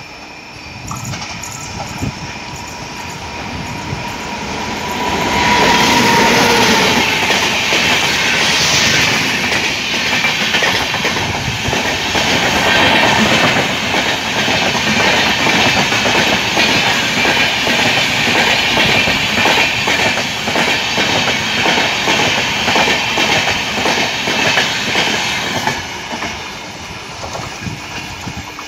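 Diesel-hauled express train approaching and passing at speed. After the locomotive goes by, a long rake of coaches clatters rhythmically over the rail joints. The sound builds over the first five seconds and eases off near the end as the train draws away.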